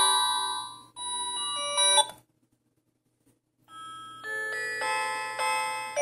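Default ringtones of a Philips E218 feature phone playing: one melody dies away and cuts off about two seconds in, and after a short silence the next ringtone's melody starts, building up note by note.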